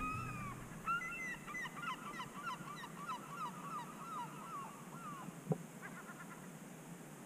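A flock of birds calling: many short calls tumbling over one another for about four seconds, then fading. A single sharp knock follows.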